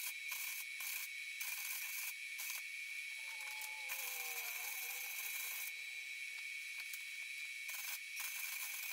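Wire-feed welder arc crackling and hissing in short stop-start bursts as the broken steel frame of a Honda Big Red 250 three-wheeler is stitch-welded.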